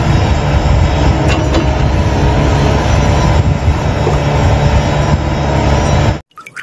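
Loud, steady engine-like roar with a heavy deep rumble, which cuts off abruptly about six seconds in.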